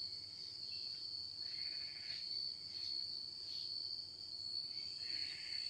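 Faint background with a steady high-pitched whine and soft sounds coming and going; no machining is heard.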